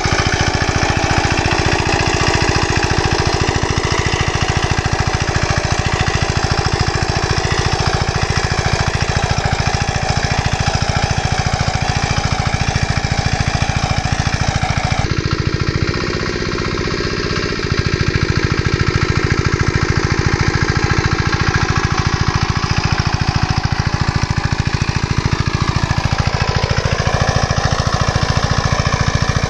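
Engine of a small agricultural machine running steadily with a fast, even beat. Its sound changes abruptly about halfway through and dips briefly for a second or so before running on.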